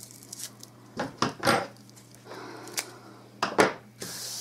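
Dry raffia straw rustling as it is gathered into bow loops by hand, with several sharp taps and knocks on a wooden tabletop, the loudest a quick double knock about three and a half seconds in.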